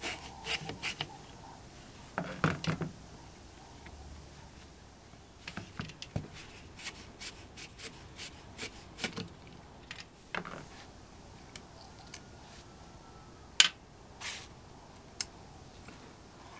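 Scattered clicks and short scrapes of metal hand tools, a flat screwdriver and long-nosed pliers, working at the cable-entry grommet in the housing of a 1972 Wolf Sapphire electric drill. A cluster of scraping clicks comes about two seconds in, and the sharpest single click comes late.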